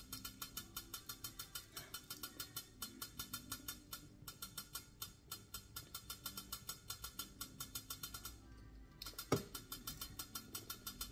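Saladmaster pot's steam valve rattling in a rapid, even run of light clicks, about four a second, as the rice boils. It pauses briefly near the end, then there is one louder knock and the clicking resumes.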